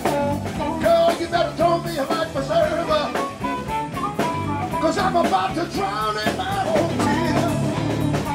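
Blues-style band music: a drum kit playing under guitar and a singing voice.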